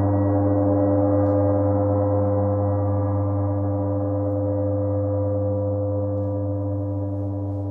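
A large gong ringing on in a long, slowly fading drone of many steady tones, the deepest hum the strongest, with one tone wavering in a slow pulse.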